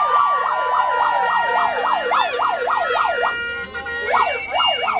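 Electronic siren on a rapid yelp, sweeping up and down about four times a second. It breaks off a little past three seconds and starts again near four seconds, with a steady high tone over it near the end.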